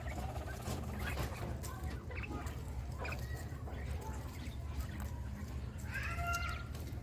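Poultry calling softly among faint clicks and rustles, with a short, higher pitched call about six seconds in, over a steady low hum.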